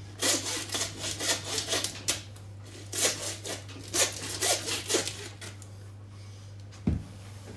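Meat hacksaw sawing through a lamb carcass's backbone in quick back-and-forth rasping strokes, about two or three a second, stopping about five seconds in. A single low thump near the end.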